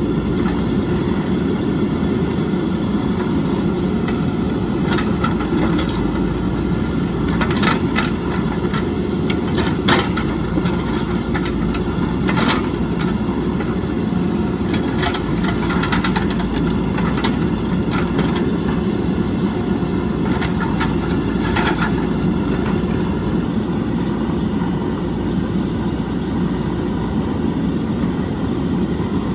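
JCB backhoe loader's diesel engine running steadily, with scattered sharp clanks and knocks through the middle stretch.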